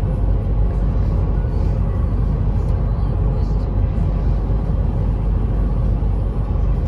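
Steady road and engine rumble of a vehicle cruising at highway speed, heard from inside the cabin.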